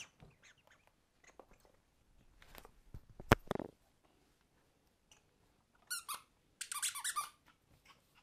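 Squeaky dog toy squeaking in quick clusters as a puppy bites and shakes it, with scattered knocks and one sharp knock about three seconds in.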